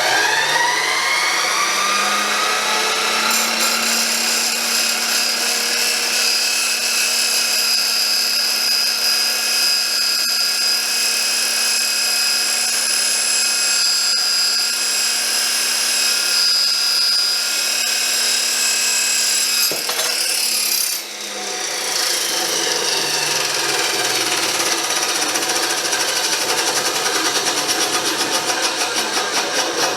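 Chop saw fitted with a Diablo Steel Demon carbide-tipped steel-cutting blade and run at half speed. Its whine rises as it spins up, then holds steady. About twenty seconds in, the blade bites into steel, the whine falls in pitch and a harsh grinding, fluttering cutting sound takes over.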